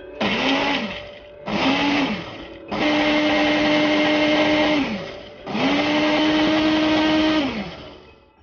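Ninja countertop blender motor and blades running in four loud bursts, two short then two of about two seconds, the motor speeding up and winding down each time. It is chopping dried pepper and scotch bonnet peppers with water into a purée.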